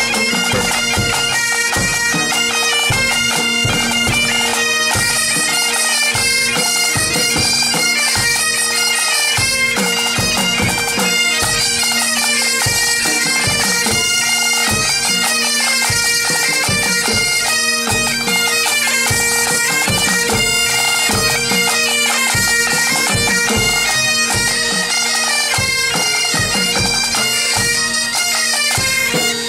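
Breton bagad playing: bombardes and bagpipes carry the melody over the pipes' steady drones, with snare drums keeping a regular beat.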